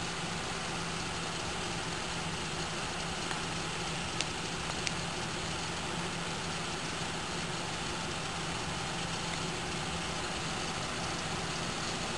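Ford SUV's engine idling steadily, with a couple of faint clicks about four and five seconds in.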